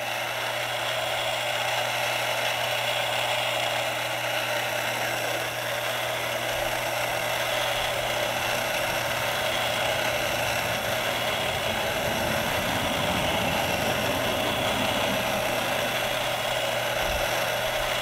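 The 12-volt DC electric gyro of a turn-and-bank indicator spinning at speed, with a steady mechanical whir. Its bearings sound a little on the dry side.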